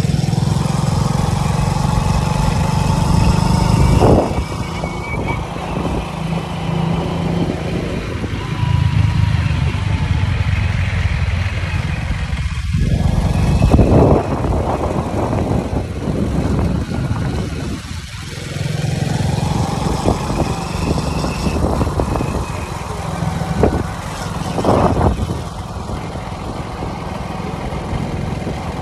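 Small motorcycle engine running while riding, its pitch going up and down with the throttle, with wind buffeting the microphone.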